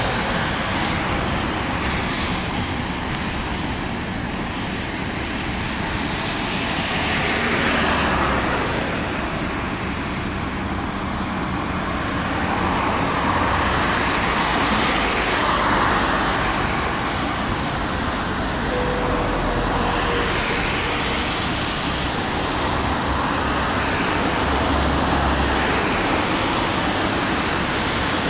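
Road traffic going by close at hand: a steady rush of tyre and engine noise that swells several times as vehicles pass.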